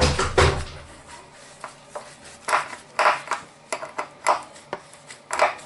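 A dull knock at the start, then a screwdriver clicking and scraping against the metal fittings and wiring under an electric water heater, in a string of short sharp sounds with uneven gaps.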